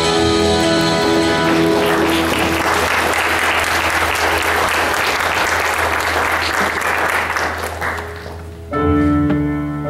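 A held chord of live band music ends about a second and a half in, and an audience applauds. Near the end the piano and keyboard start playing again.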